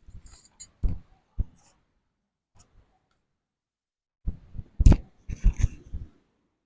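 Scattered handling noises: a few small knocks and rustles, then a louder cluster of thumps and rustles from about four to six seconds in.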